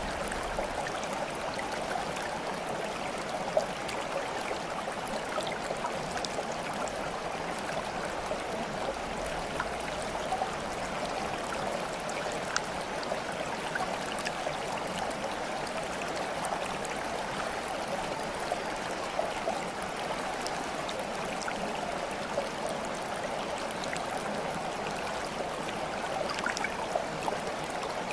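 Stream water flowing and babbling steadily, with small scattered plinks and gurgles.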